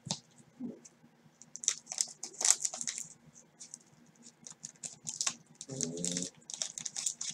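A sealed 1989 Score football card pack wrapper crinkling and crackling in a series of short, sharp clicks as gloved hands handle it and snip it open with scissors. A brief low pitched sound comes about six seconds in.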